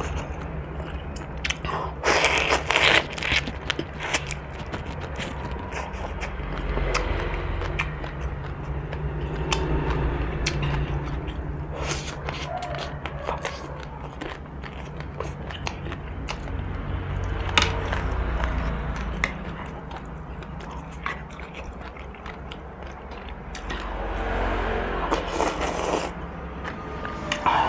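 Close-miked eating sounds: wet chewing with many small clicks and crackles, including shrimp shells crackling as they are peeled a couple of seconds in. Near the end there is a long noodle slurp.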